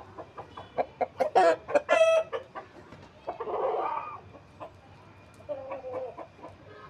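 Aseel chickens clucking in quick short notes, with a loud pitched call about two seconds in and a harsh squawk a little later. The clucking picks up again near the end.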